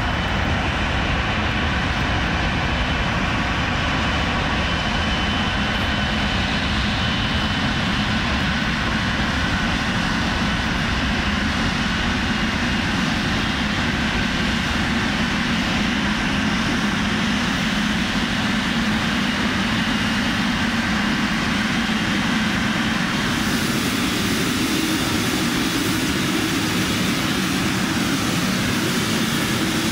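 Boeing 777's GE90 turbofan engines running at taxi power: a steady jet whine over a rush of air. The high-pitched hiss grows stronger late on.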